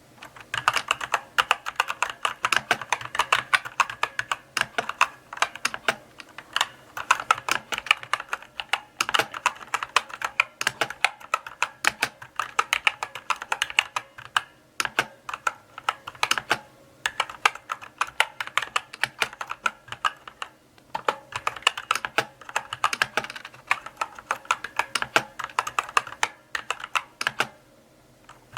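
Slow typing on a mechanical keyboard: runs of sharp key clicks broken by short pauses every few seconds.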